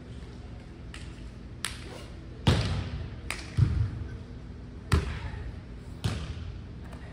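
A volleyball thudding several times, roughly once a second, the two loudest hits near the middle with a deep boom, over a steady low hum.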